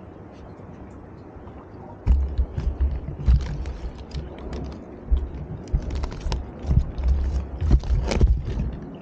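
Hands rummaging in a plastic cooler of ice slurry: ice clinking and water sloshing, with irregular low thumps against the cooler, starting suddenly about two seconds in. Before that, a steady hiss of wind and water.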